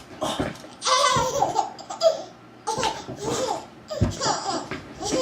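A baby laughing in a run of short belly-laugh bursts, about four or five of them.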